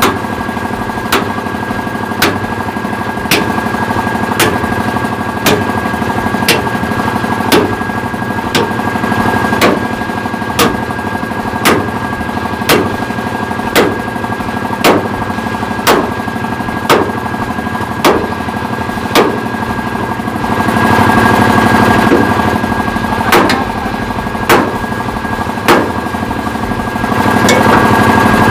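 Sledgehammer blows on a steel plate on a dump truck's steel chassis rail, evenly paced at about one strike a second, each a sharp ringing clang. A steady machine drone with a constant tone runs beneath; it grows louder for a couple of seconds past the middle and again near the end.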